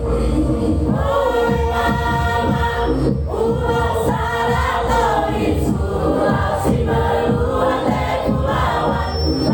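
A choir singing long held notes over an instrumental accompaniment with a steady beat; the voices come in about a second in.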